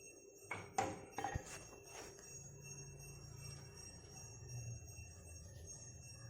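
Coconut-shell kalimba (thumb piano) being plucked: a few sharp, ringing notes in the first two seconds, then quieter ringing that dies away.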